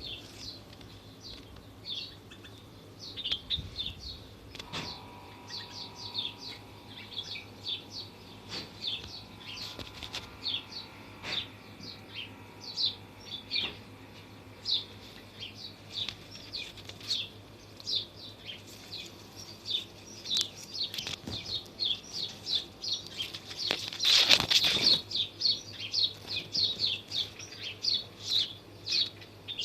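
Many small birds chirping, a steady run of short high-pitched chirps several times a second. About 24 s in, a brief loud rush of noise rises over the chirping.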